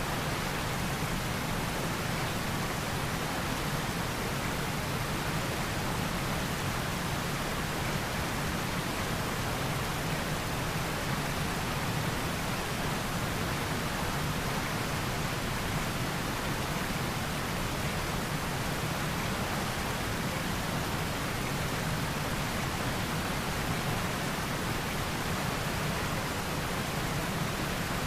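A steady, unchanging hiss of noise spread evenly from low to high pitches, slightly stronger in the low range.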